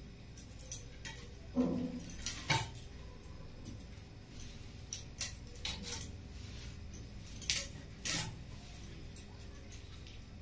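Small fish being scaled and cleaned by hand against a curved metal fish-cutting blade: irregular scraping and sharp clicks of fish and fingers on the metal, loudest about two seconds in and again about eight seconds in.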